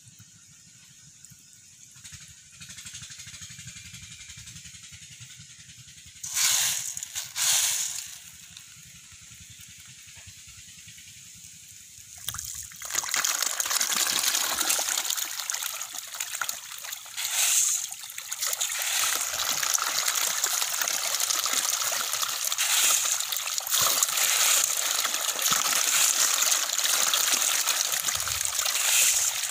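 A dense school of young catfish thrashing at the water's surface in a feeding frenzy, a continuous loud splashing and churning that starts about twelve seconds in. Before it, two short splashes about a second apart.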